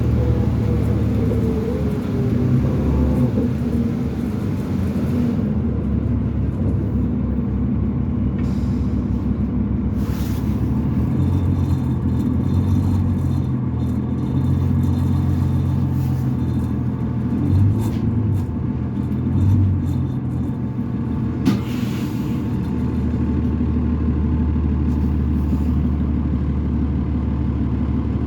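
Cummins ISL diesel engine of a 2005 New Flyer D40LF transit bus running under way, heard from inside the bus as a steady low drone that rises and falls with the driving. A single sharp click sounds about two-thirds of the way through.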